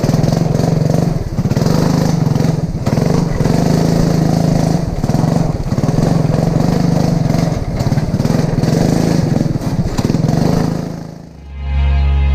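Racing lawn mower engine running hard at steady high revs, with brief dips in throttle. The engine sound fades out about 11 seconds in and music starts near the end.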